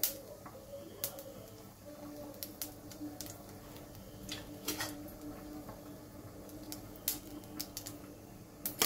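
Mustard seeds popping in hot oil in a wok: scattered sharp pops, a few every second, with a quick cluster near the end. This is the tempering stage, the seeds spluttering once the oil is hot.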